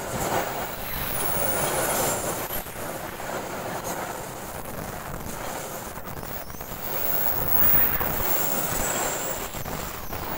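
Container freight train rolling past close by: a steady rush and rattle of steel wheels on rails that swells and eases as the wagons go by.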